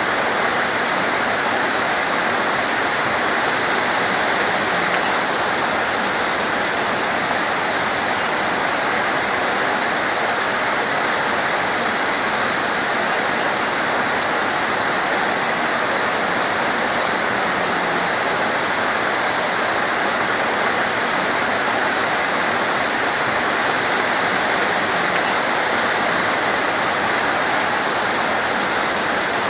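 Torrential rain pouring steadily, a dense, even rushing hiss that does not let up. A single sharp tick sounds about halfway through.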